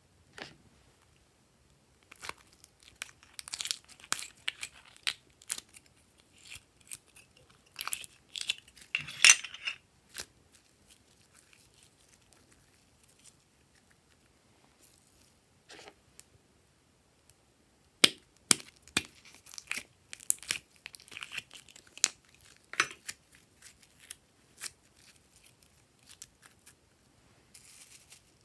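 Hands handling slime add-ins and their plastic packaging and containers: crinkling, crackling and sharp clicks in bursts, with quieter pauses between them.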